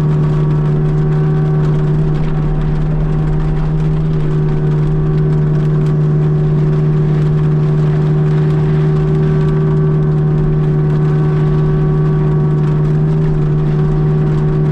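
Kubota U55-4 mini excavator running with its Prinoth M450e hydraulic mulcher head spinning, chewing through wet cane brush. The drone stays steady throughout.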